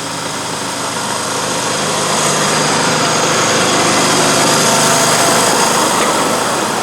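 A 7¼-inch gauge miniature railway locomotive running and drawing closer. Its engine noise grows louder over the first few seconds, then holds steady.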